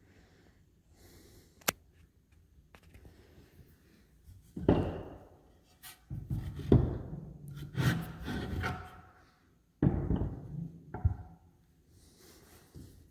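A sharp click, then three bouts of knocking and thumping handling noise.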